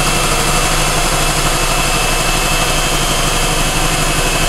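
Electric hand mixer running steadily with its beaters in pie filling, a low motor hum with a thin steady high whine.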